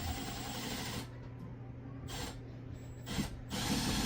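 Power drill boring a hole through drywall for a wall anchor. It runs about a second, stops, and starts again in short spurts.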